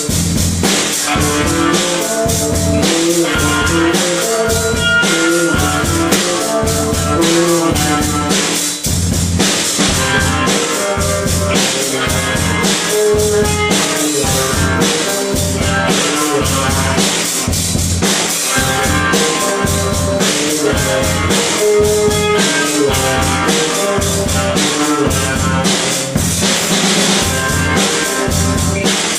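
Rock band playing loud and without pause: a drum kit keeping a steady beat with kick drum, under guitar riffs. It is recorded live in a rehearsal room as a demo.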